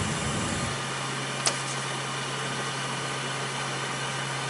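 UP! Mini 3D printer humming steadily while powered on, with a brief low rumble at the start and a single sharp click about a second and a half in.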